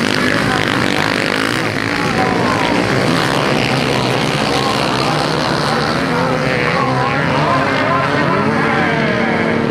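Several motocross bikes racing on a dirt track, their engines revving up and down as they pass. Near the end, one engine climbs and then holds a steady note.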